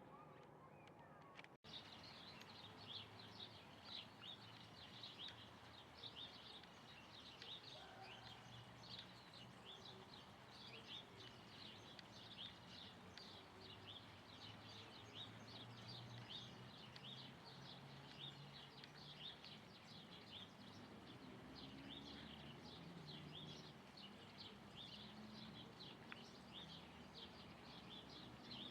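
A flock of small birds chirping faintly in many quick, overlapping short calls, starting just under two seconds in after a brief gap, over a low steady rumble.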